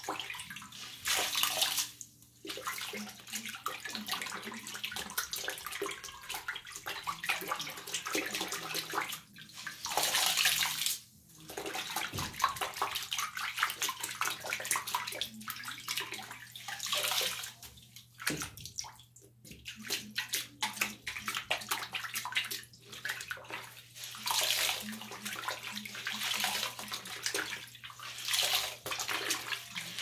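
Tap water running into a bathroom sink while a sponge scrubs the wet basin. The splashing swells and drops every few seconds, and near the end the sponge is rinsed under the stream.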